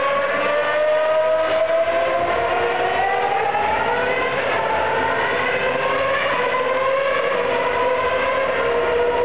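2008 Formula One car's 2.4-litre V8 engine running at high revs as the car drives around the circuit. The single engine note climbs slowly in pitch over the first four seconds or so, then slowly sinks.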